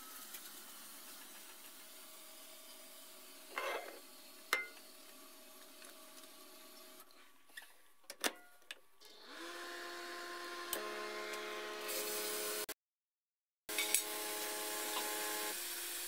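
A paper towel rustles briefly and a few sharp clicks follow as the microwave oven door is shut and its dial set; about nine seconds in the microwave starts and runs with a steady electrical hum.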